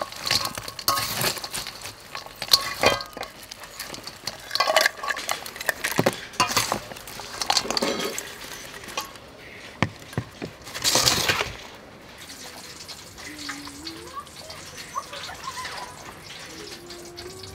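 A metal spoon clinking and scraping against a stainless steel bowl as crispy fried frogs are tossed and scooped out, in a run of irregular clatters that stops about two-thirds of the way through.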